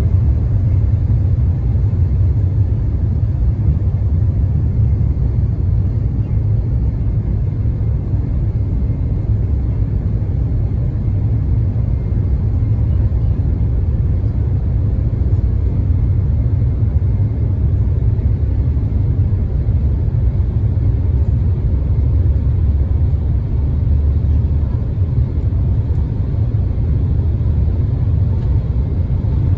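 Embraer E190 airliner heard from inside the cabin during its takeoff roll: its two GE CF34 turbofans at takeoff thrust and the wheels rolling down the runway make a loud, steady low rumble.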